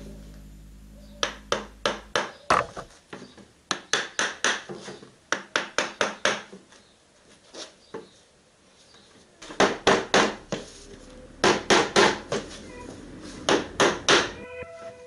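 A small hammer striking a wooden cot rail, driving it down onto wooden dowels in the ends of the bars: runs of sharp knocks several a second, with a pause of a couple of seconds midway.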